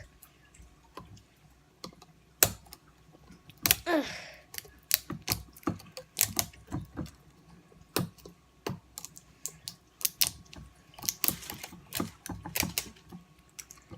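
Irregular sharp plastic clicks and knocks from a container being handled and opened, with a brief grunt about four seconds in.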